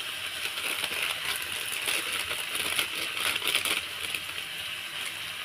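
Chicken pieces and spice masala frying in oil in a pan: a steady sizzle with many fine crackles.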